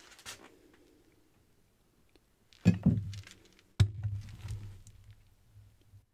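Metal plastisol injector knocking against a clamped 3D-printed lure mold as it is seated in the fill hole: two knocks about a second apart, each trailing into a low rumble as it is pressed down to shoot the mold.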